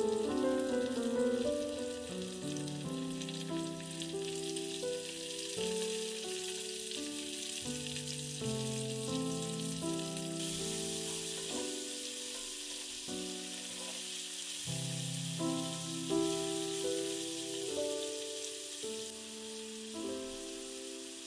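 Food sizzling in hot oil in a frying pan, a steady crackle that grows louder about halfway through and eases again near the end, over soft background music.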